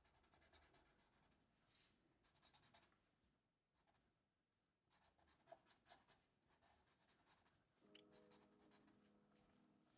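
Faint scratching of a black felt-tip marker on paper, in runs of quick short strokes, with a pause about three to five seconds in.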